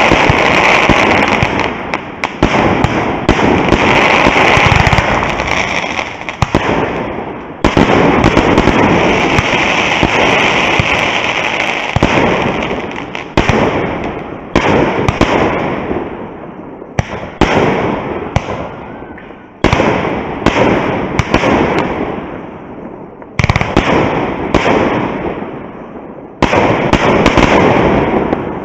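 Fireworks display: a string of sudden bangs, each followed by dense crackling that fades away over a second or two, with a new barrage breaking in about every one to three seconds.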